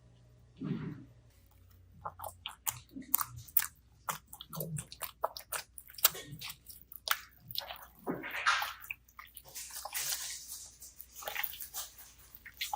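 Glitter slime being squished and kneaded by hand: a run of wet, sticky pops and crackles that starts about two seconds in.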